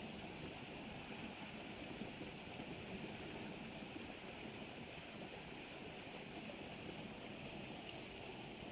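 Steady rush of fast-flowing, turbulent water in a canal.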